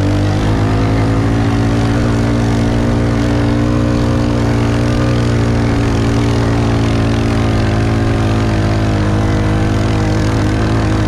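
Suzuki King Quad 300 ATV's single-cylinder four-stroke engine running at a steady pitch while the quad is ridden along.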